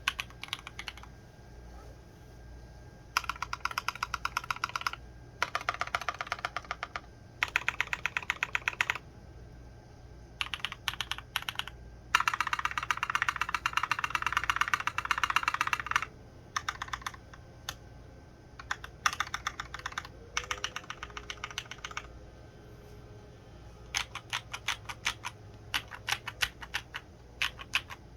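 Typing on a KBDfans Endless-80 mechanical keyboard with an aluminum plate, doubleshot ABS keycaps and Cobalt POM switches. The key clacks come in bursts of quick strokes with short pauses between them, and the loudest, fastest run falls from about twelve to sixteen seconds in.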